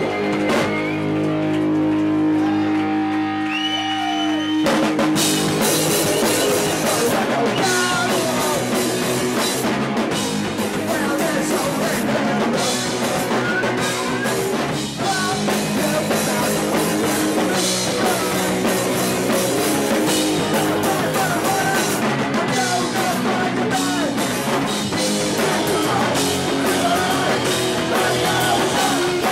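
Punk rock band playing live through guitar amps: a held, ringing guitar chord for the first few seconds, then the drums and full band crash in about five seconds in, with shouted vocals over fast, loud punk rock.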